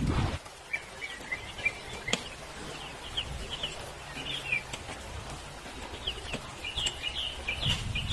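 Small birds chirping in short runs of quick high notes, with a sharp click about two seconds in.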